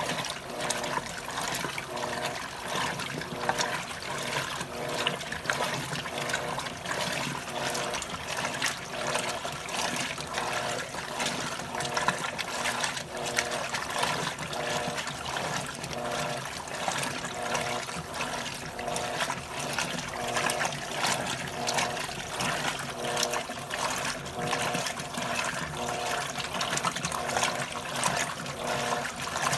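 Electrolux top-loading washing machine agitating on its heavy-duty turbo programme: water sloshing steadily while the motor hum cuts in and out about once a second as the agitator reverses.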